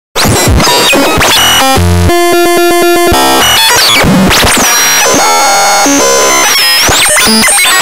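Loud, dense electronic music with synthesizer tones, starting abruptly. About two seconds in comes a fast pulsing stretch, and later high tones slide down and back up.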